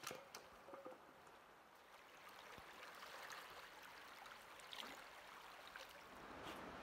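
Faint, steady rush of flowing river water, with a few light clicks.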